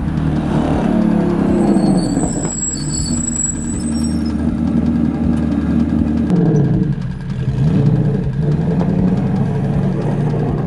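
Ford Mustang GT4 race car's V8 engine running, with the revs rising and falling several times in the second half.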